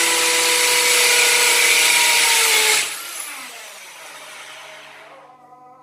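Corded electric drill boring a hole into a wall, running at full speed with a steady whine. It is released about three seconds in and the motor winds down over the next two seconds.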